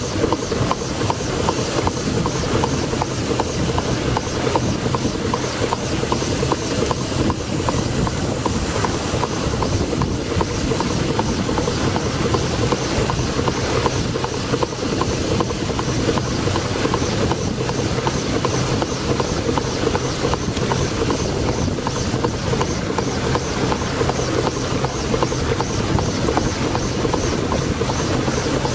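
1902 Toledo steam carriage engine running steadily aboard a steamboat, with a fast, even beat.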